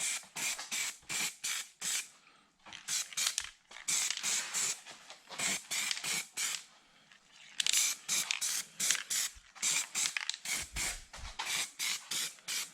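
Aerosol spray can of primer being sprayed onto small steel brackets in quick short bursts of hiss, about three a second, with two brief pauses.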